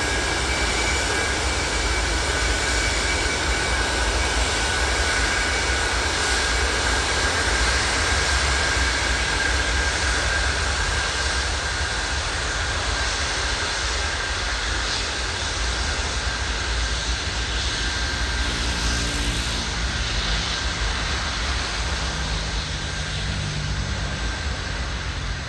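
Antonov An-124 Ruslan's four Progress D-18T turbofan engines running at taxi power as the freighter rolls past, a steady jet hiss with a high whine over a low rumble, easing slightly near the end.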